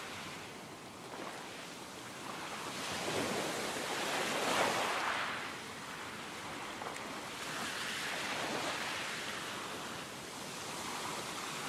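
Ocean waves washing in and out: a rushing surf noise that swells and fades several times, loudest about halfway through.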